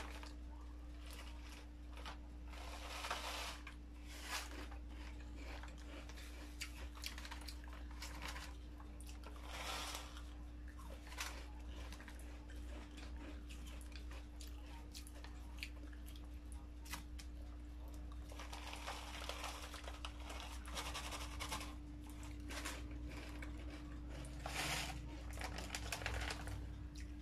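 Metal spoon scraping and tapping against a foil tray as a creamy topping is spread and pressed down, with light foil crinkling. The scrapes come in short, irregular strokes among scattered clicks, with a steady low hum underneath.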